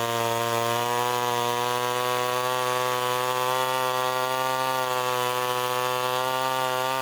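1962 Wright C-50 chainsaw's two-stroke engine running steadily at speed while cutting wood, its pitch wavering slightly under the load. The RPM seems slower than usual, which the owner thinks could mean the carburetor needs dialing in better.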